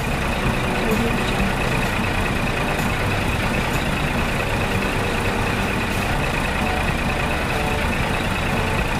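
Engine sound effect of a tractor running steadily, a constant rumble with a high whine on top, cutting in abruptly at the start.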